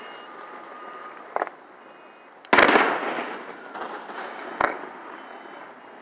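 Aerial fireworks shells bursting close overhead: a small pop about a second and a half in, then a loud cluster of bangs at about two and a half seconds that trails off, and another sharp bang a little before the end.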